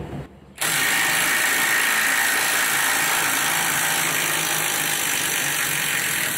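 Ingco cordless impact driver running in reverse, hammering steadily as it backs a bolt out. It starts suddenly a little over half a second in and stops near the end, super loud.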